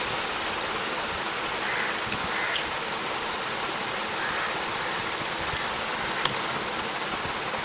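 Steady hiss of background noise, with a few faint, sharp clicks scattered through it.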